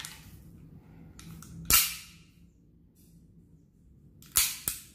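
Sharp metallic clacks from the action of a KJW M9A1 gas blowback airsoft pistol being worked: one loud clack almost two seconds in, then two more close together near the end.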